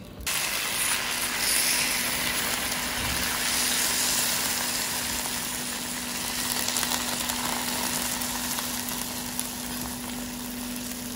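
Hot, freshly baked baklava sizzling steadily as cold sugar syrup is poured over it, with a steady low hum underneath.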